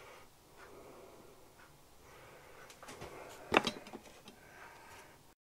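Quiet workshop background with a few light clicks and one sharp knock about three and a half seconds in, then the sound cuts off.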